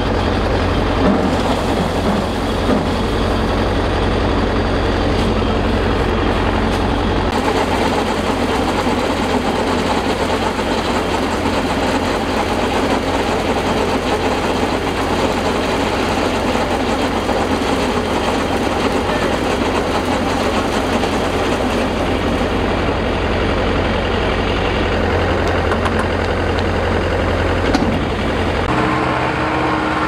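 Zoomlion rice combine harvester's engine running steadily.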